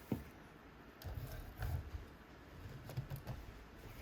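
Small brushed motor of an Axial SCX24 Deadbolt mini crawler buzzing faintly in a few short, uneven bursts as throttle is applied, trying to turn but not spinning: the motor is burnt out. A sharp click at the start.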